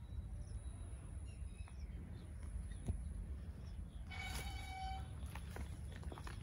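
A vehicle horn sounds one steady note for about a second, roughly two thirds of the way through. Under it are footsteps and a low steady rumble, with a sharper knock about three seconds in.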